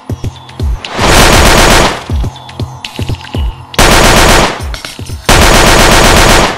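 Automatic machine-gun fire sound effect in three long bursts of rapid shots, the first about a second in and the last running on near the end. Electronic music with a steady kick-drum beat plays underneath.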